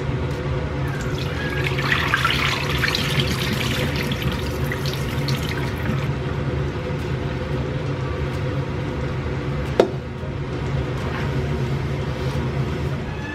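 Cloudy rice-rinse water poured out of a pot into a sink, splashing for about five seconds from a second in. There is a single sharp knock near the ten-second mark, over a steady low hum throughout.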